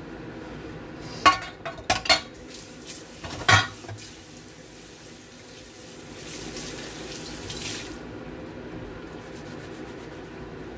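Ceramic bowls and a stainless steel pot clinking against each other four times in the first few seconds of washing up in a steel sink. About six seconds in, tap water runs onto a bowl being rinsed for under two seconds.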